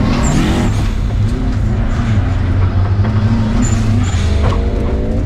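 Subaru WRX rally car's turbocharged flat-four engine running hard, its pitch climbing as it revs up and dropping between gears, twice.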